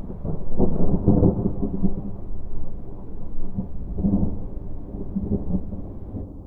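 Thunder rumbling low and rolling, swelling about a second in and again midway before fading.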